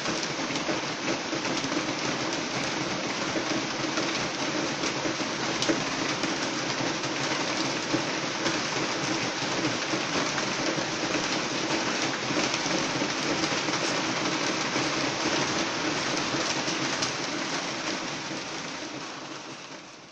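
Rain falling on a roof: a steady, dense patter of drops that fades out near the end.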